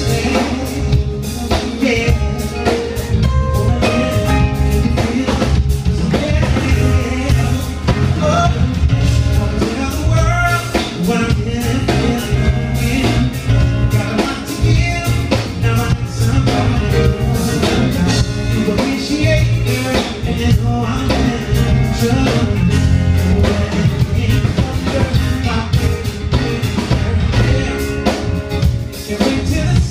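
Live band playing a smooth-jazz/R&B song: a male vocalist singing into a microphone over keyboards, electric guitar and drum kit.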